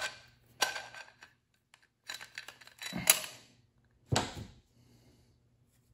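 Steel and friction clutch plates from a Ford 4R70W transmission's forward clutch pack clinking against each other and the clutch drum as the stack is lifted out. There are separate metallic clicks, a busier run of clinks around two to three seconds in, and a sharper knock about four seconds in.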